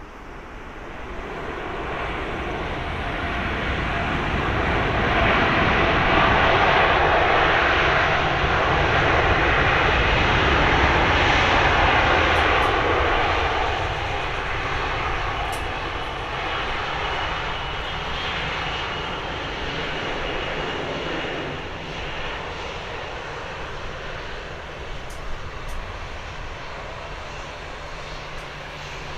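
Boeing 787-9 airliner's GEnx-1B turbofan engines on the landing rollout. The engine noise swells over the first few seconds to its loudest, typical of reverse thrust braking the jet, then drops about halfway through and settles to a lower steady rumble as the airliner slows on the runway.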